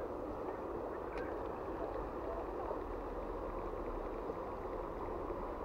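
Steady rush of a shallow river flowing over a riffle, with one faint click about a second in.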